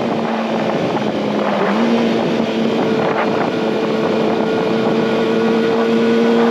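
2019 Kawasaki ZX-6R's inline-four engine running at steady revs, rising slightly in pitch about two seconds in, with wind rush.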